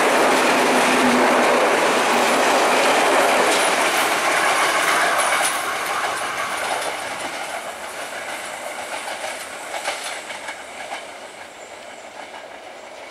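A passenger train's carriages roll past at speed, their wheels clattering over the rail joints. About halfway through the sound starts to fade steadily as the train moves off into the distance.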